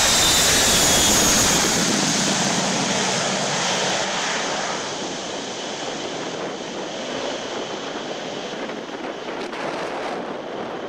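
Four-engined jet airliner running at high power as it rolls away down a wet runway: loud jet noise with a high turbine whine, fading after about two seconds to a steadier, duller rumble as the aircraft recedes.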